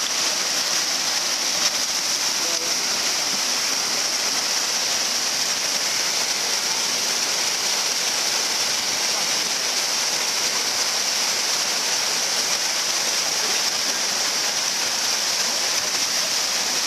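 Whitewater rapids rushing and churning in a steady, unbroken roar.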